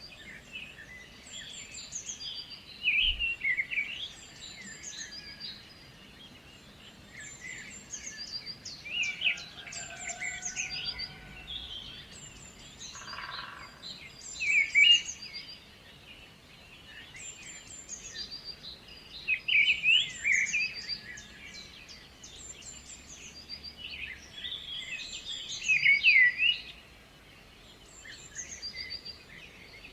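Several birds chirping and calling in a chorus of short, repeated high chirps and trills, coming in louder bursts every few seconds.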